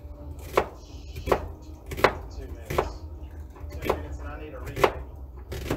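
Kitchen knife chopping onions on a cutting board: about seven sharp, evenly spaced chops, one roughly every two-thirds of a second.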